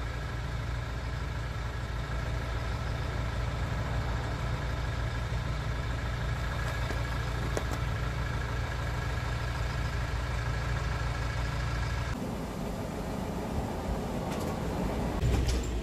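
A vehicle engine idling steadily, with a low, even hum that cuts off abruptly about twelve seconds in. Softer rustling noise and a couple of sharp clicks follow near the end.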